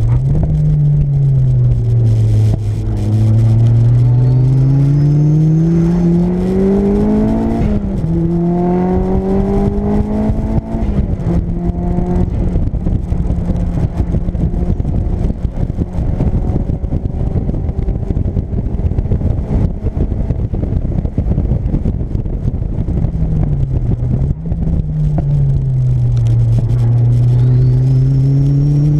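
Turbocharged Mazda MX-5's four-cylinder engine at full effort, heard from inside the cabin. The revs climb hard, dip briefly at a gear change and climb again, then hold fairly steady for about ten seconds. They drop and climb once more near the end. A faint high whistle rises with the revs as it accelerates.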